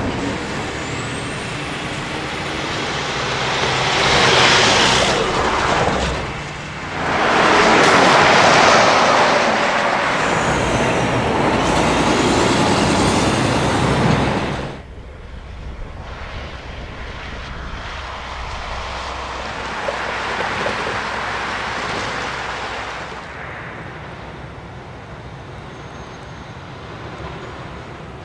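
Semi trucks passing at highway speed, their tyre and engine noise swelling in two pass-bys, the second one longer. Partway through the sound drops suddenly to a quieter, steadier rumble of a semi tractor and traffic moving slowly.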